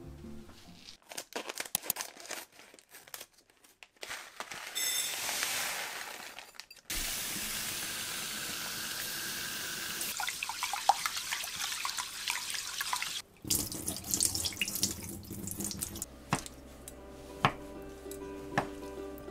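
Kitchen tap water running into a glass bowl of rice while the rice is washed by hand: a steady rush with small clicks of grains and fingers against the glass, lasting several seconds and then cutting off. Near the end, a kitchen knife cuts a block of konnyaku on a wooden board, three sharp strokes over soft background music.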